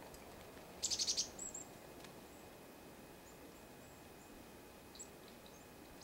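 Black-capped chickadees calling: a quick burst of about six high notes about a second in, then a few thin, high notes, with faint single notes later.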